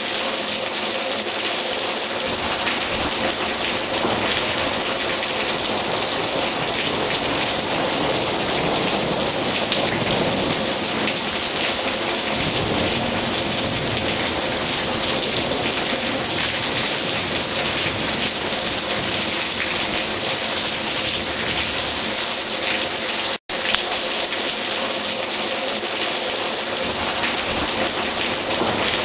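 Steady rain falling, with water pouring off a tiled roof into a rain barrel. The sound cuts out for an instant about two-thirds of the way through.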